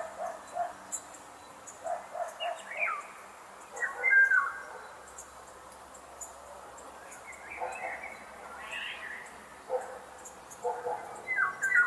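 Outdoor ambience of wild birds chirping and calling in short gliding phrases. Low notes come in quick groups of three or four, and faint insect ticking sits underneath.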